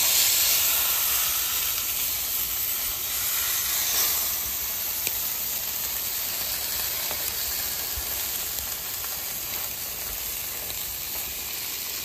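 Sockeye salmon fillet and chicken skewers sizzling on a hot flat-top griddle. The sizzle is loudest as the fillet goes down on the metal, then settles to a steady hiss.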